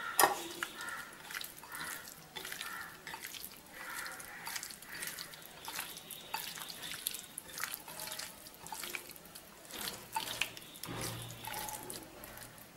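Wet squelching and irregular light clicks of a hand mixing thick masala paste into fish pieces in a glass bowl.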